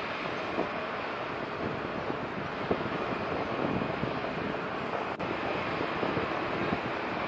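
Steady outdoor background noise heard from high above a port: an even hiss of wind and distant city sound with small crackles, and no distinct event.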